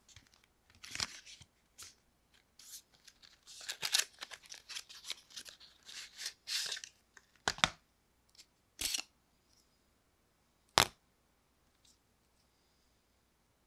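Cardboard packaging inserts of a phone box being slid apart and handled: a run of scraping and rustling for several seconds, then three sharp taps about a second apart, the last one loudest.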